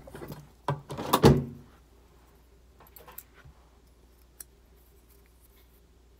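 Sharp metallic clicks and knocks from handling the parts of a Kimber Ultra Plus CDP 1911-type pistol, loudest in the first second and a half, followed by a few faint ticks and one last click.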